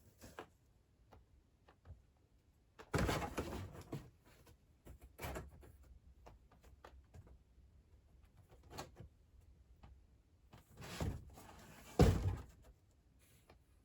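Cardboard box being knocked about by a playing kitten: scuffing and a series of thumps, the loudest a sharp thump near the end.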